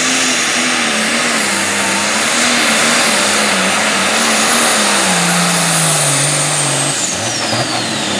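International Harvester Light Pro Stock pulling tractor's turbocharged diesel engine running hard under the load of the weight-transfer sled, its note wavering, with a high turbo whistle above it. About five seconds in the engine note drops lower, and near the end the turbo whistle glides steadily down.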